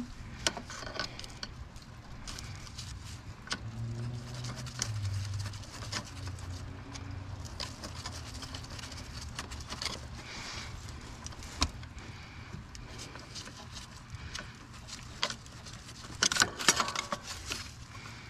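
Scattered clicks, taps and light rattles of a hand tool and parts being handled in a car's engine bay. The loudest burst of rattling comes about sixteen seconds in.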